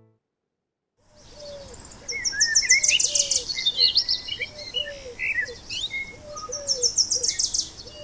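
Several wild songbirds singing at once after about a second of silence. A high rapid trill comes twice, with assorted chirps and slurred whistles between and a low arched note repeating about once a second underneath.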